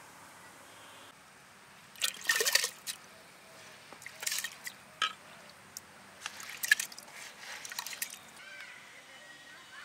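Water splashing and dripping in short bursts as wet broken rice is scraped by hand from a clay bowl into a clay pot of water; the loudest splash comes about two seconds in.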